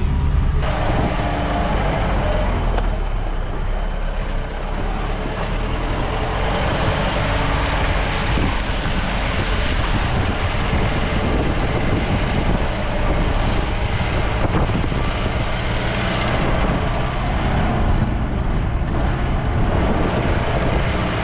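Jeep engine running steadily while driving a rough, unpaved road, heard from inside the cab, with a constant low rumble and road noise from the tyres and body.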